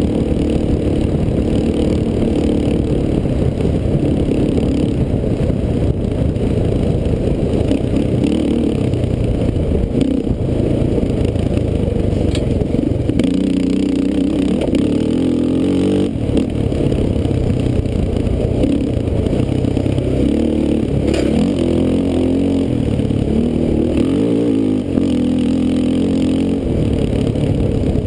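Sport ATV's engine running hard at close range, its pitch climbing and dropping again and again as the rider works the throttle, with rattles and a few sharp knocks from the quad over rough ground.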